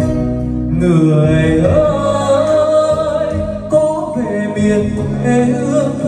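Karaoke: a man singing into a wireless microphone over a backing track, both played through the loudspeakers. His voice comes in about a second in.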